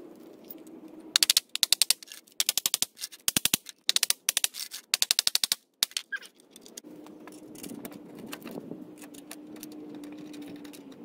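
Ball-peen hammer striking steel T-nuts into a plywood board, sharp metal taps in quick bursts of several blows that go on for about five seconds. After that, a steady low hum with no more strikes.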